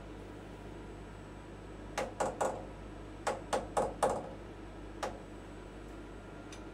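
A wooden-handled hammer taps an aluminium workpiece clamped in a machine vise, eight sharp knocks in all: three quick taps, then four, then a single one. This is the usual way of seating the part down in the vise before the clamp is tightened.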